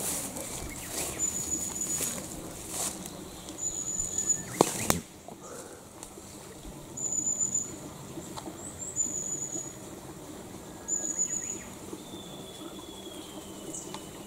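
Rustling and footsteps of someone moving through wet undergrowth, with a sharp snap a little under five seconds in. Behind it, a thin high-pitched call repeats about every two seconds, and a single falling whistle comes near the end.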